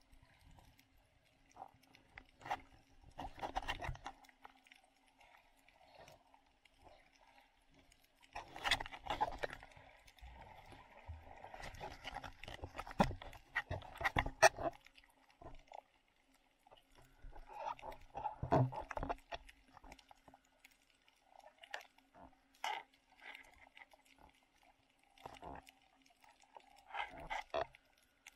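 Muffled underwater noise picked up by a submerged action camera: irregular bursts of rushing water and sharp knocks as the snorkeler swims, over a faint steady hum.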